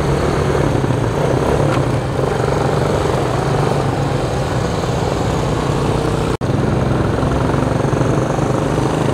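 Several small step-through motorcycles running together as they ride past slowly in a line, a steady droning engine sound. It breaks off for an instant a little past six seconds in.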